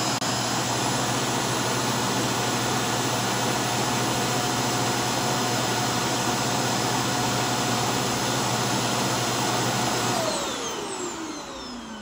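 Yeedi self-emptying station's suction motor running steady and pretty loud, like a normal vacuum cleaner, as it empties the docked robot vacuum's dustbin into the station's bag. About ten seconds in it spins down with a falling whine.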